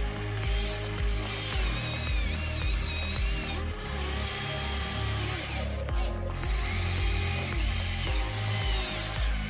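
Huina 593 1/14-scale RC excavator's small electric motors and gearboxes whining as it works, the pitch rising and falling in short bursts as each function starts and stops.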